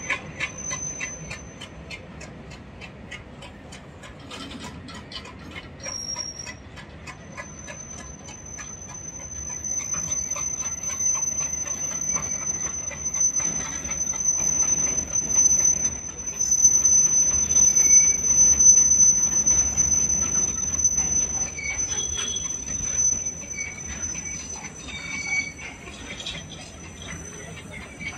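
Open-top freight wagons rolling past on the rails, their wheels giving a steady high-pitched squeal, with a quick run of clicks in the first several seconds. The rumble grows louder through the middle and eases off towards the end.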